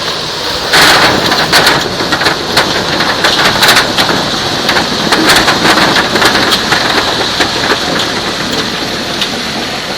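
Grimme SE 75-30 potato harvester at work: a steady dense rattle of many small knocks, as potatoes, soil and clods tumble over the moving web chains, with a constant high whine running through it.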